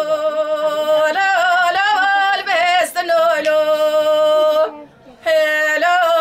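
A woman singing unaccompanied in the Kurdish dengbêj style. She holds long notes decorated with quavering ornaments and breaks off briefly for breath just under five seconds in.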